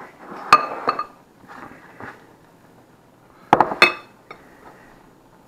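Plates and a fork clinking on a kitchen counter as they are set down and moved about. There are sharp clinks about half a second and a second in, a lighter one near two seconds, and a quick cluster of two or three louder clinks about three and a half seconds in.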